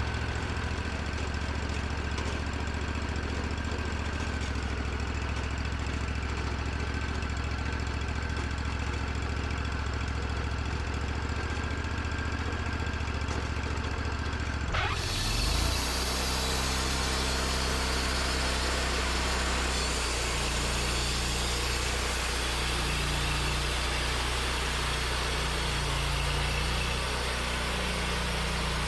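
Portable sawmill engine running steadily. About halfway through the sound changes abruptly: a hiss comes in over the top and the low engine note turns uneven.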